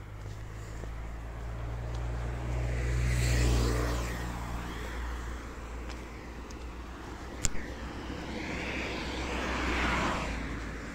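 Cars passing along the road: one swells up and fades with a low engine hum about a third of the way in, and another passes near the end. A single sharp click comes between them.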